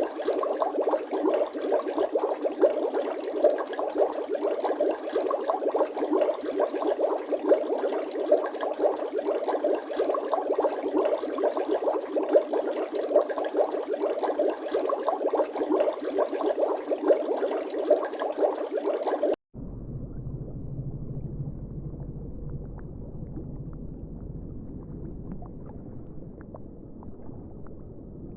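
Water bubbling densely and continuously, a fast crackle of many small bubbles. About two-thirds of the way through it cuts off abruptly and gives way to a quieter, deeper bubbling.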